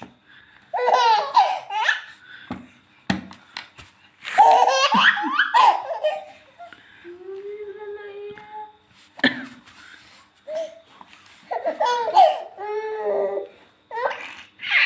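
A baby giving repeated bursts of belly laughter, set off by an adult's coughs, which come as short sharp sounds between the laughs.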